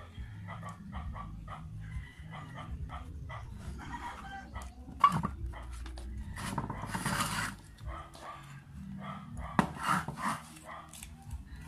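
A dog barking and yipping repeatedly with short calls, with two sharp knocks, one about five seconds in and one near the end.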